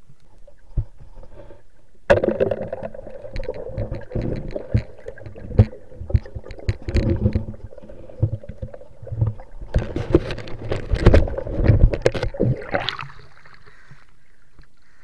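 Muffled underwater knocks, clatter and water movement as a speared fish is handled on the spear shaft and its line. The sound starts suddenly about two seconds in and dies down about two seconds before the end.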